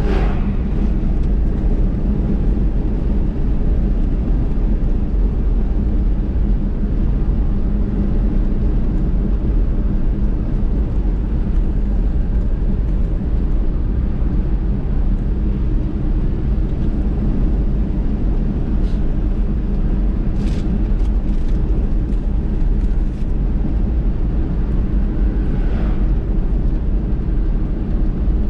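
Steady low rumble of a car driving along a road, engine and tyre noise, with a few faint short ticks about two-thirds of the way through.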